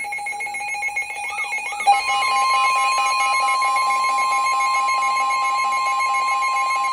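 Emergency Alert System alert tones: a rapid, chattering electronic tone for about two seconds, then a loud, steady attention tone with a pulsing lower tone beneath it.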